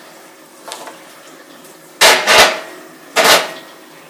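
Plastic vacuum-sealer bag being handled, with two loud crinkling rustles about two and three seconds in.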